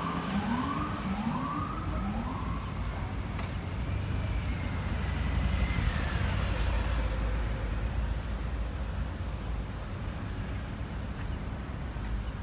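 Emergency-vehicle siren in a fast yelp of repeated rising sweeps, about two a second, fading out about two seconds in, over steady city traffic noise. A low traffic rumble swells in the middle, and a thin high tone holds and then falls away around six to seven seconds in.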